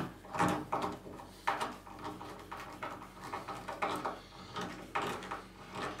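A hand screwdriver driving small self-tapping screws to fasten a minibar drag hinge, making a series of short, irregular scraping sounds.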